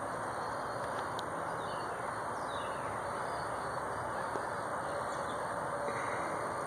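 Squirrel giving the raspy call the uploader calls its laugh, a few faint falling notes about two seconds in, over a steady background hiss.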